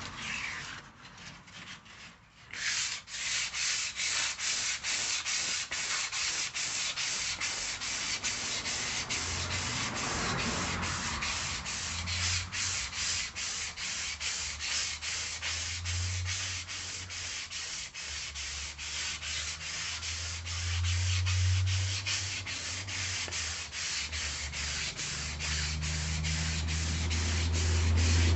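Steady abrasive rasping noise, pulsing two to three times a second, with a low hum that comes and goes and grows louder near the end.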